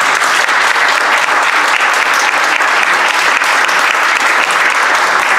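Loud, steady applause from a roomful of people clapping.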